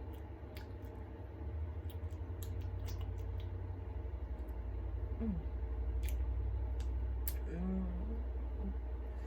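Scattered light clicks and taps from handling candies and icing while decorating a gingerbread house, over a steady low hum. A brief murmured voice sound comes about halfway through and again near the end.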